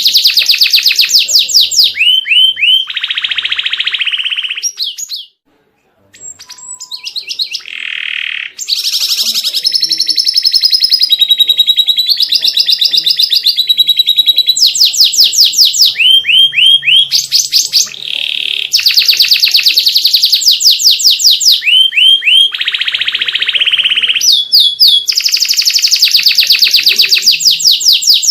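Domestic canary singing a long, varied song of fast trills and repeated rolling notes, switching from one phrase to the next every second or two. There is a brief break about five seconds in.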